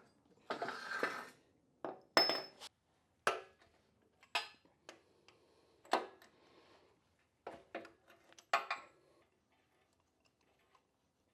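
Hard objects clinking and clattering as they are handled and set down: a string of sharp, separate clinks with short ringing, several with brief scraping between them, stopping about nine seconds in.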